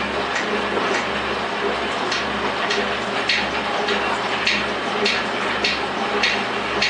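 Rhodes metal shaper running on a cut: a steady motor hum with a regular click a little under twice a second as the ram strokes back and forth.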